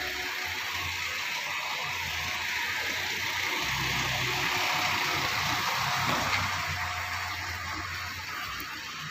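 Maruti Suzuki Ritz hatchback rolling slowly in at low speed with its engine running, heard as a steady hiss with a low hum that grows as the car comes close and then eases off near the end.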